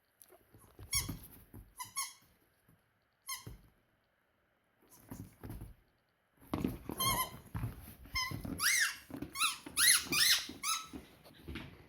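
Dog chewing a squeaky toy: a few separate squeaks in the first half, then a quick run of squeaks, some bending up and down in pitch, over dull thuds of chewing and handling.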